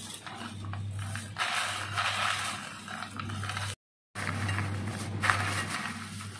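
Hands tossing a bowlful of crispy fried omapodi (gram-flour sev) strands: a dry, crackly rustling that comes in uneven waves, broken by a brief dropout a little before four seconds in.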